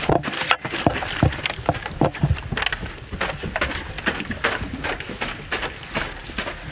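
Footsteps of a trail runner on sandy, dusty ground: a quick, uneven series of short thuds and scuffs, several a second.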